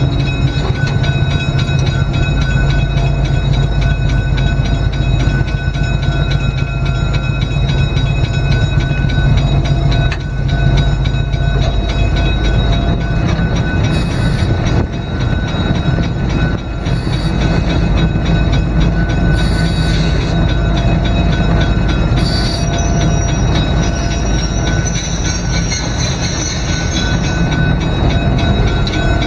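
GE 44-ton diesel locomotive's twin diesel engines running in a steady, loud drone, heard from inside the cab as the locomotive rolls. Short high-pitched wheel squeals come four times in the second half, followed by a longer wavering squeal that fades before the end.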